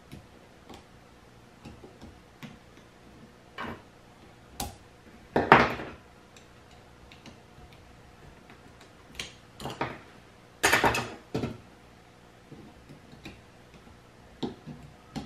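Scattered clicks, knocks and scrapes of hands and pliers working on a Ninebot ES2 scooter's lithium battery pack as its cell groups are pried apart. The loudest handling noises come about five and a half seconds in and again around eleven seconds in.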